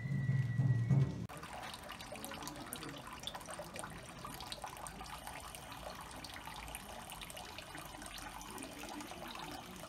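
Drum-heavy music in the first second or so cuts off abruptly, leaving water running steadily from a spout into a stone shrine purification basin, a continuous trickling splash.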